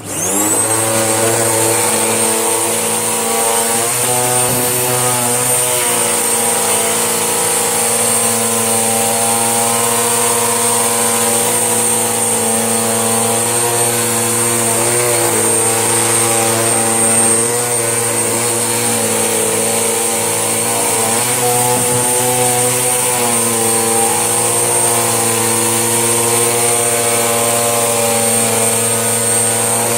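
Vacuum cleaner switched on, its motor whining up to speed, then running steadily with a high whine, the pitch shifting slightly now and then as it sweeps.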